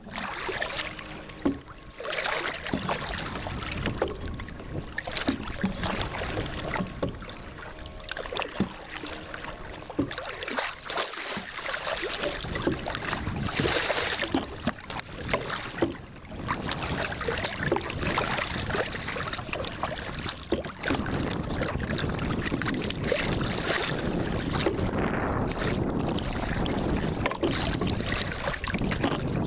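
Water splashing and knocking around a small boat, with irregular short knocks and wind on the microphone.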